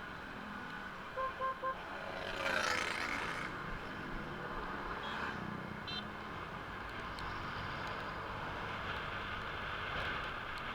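A vehicle horn gives three quick short toots, then a vehicle passes close by with a rush of noise over a steady background hiss of traffic.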